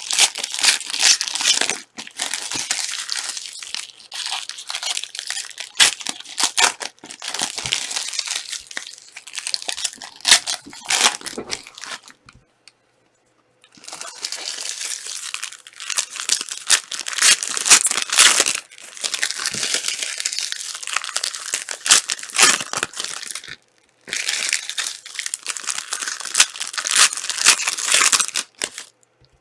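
Crinkling and tearing of Panini Prizm trading-card pack wrappers being ripped open and handled, in long spells of crackling broken by a short pause about twelve seconds in and a brief one near the end.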